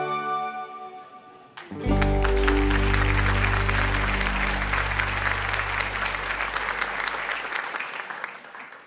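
Background music fades out; then, about two seconds in, a small group claps over a held chord of music. The clapping and music fade out together near the end.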